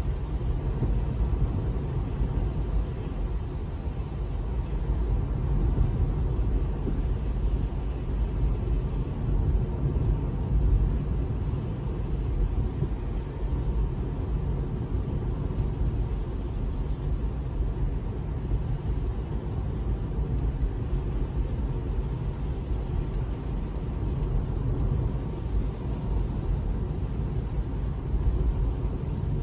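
Steady low rumble of tyre and road noise inside the cabin of a Tesla electric car driving on a wet road, with no engine note.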